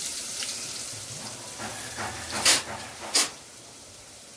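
Garlic frying in hot oil in a pot, a steady sizzling hiss. A spoon stirs it, with a few scraping strokes against the pot, the two loudest about two and a half and three seconds in.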